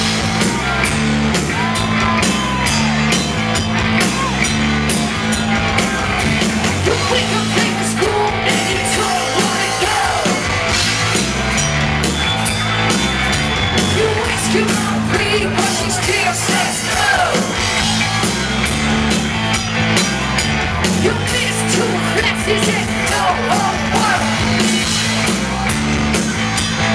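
Rock band playing live: electric guitars and a drum kit with a steady driving beat and a stepping bass line.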